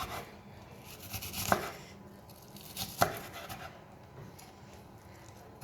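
Knife dicing a red onion on a cutting board: slow, scattered cuts with two sharp knife taps on the board, about one and a half seconds in and again about three seconds in.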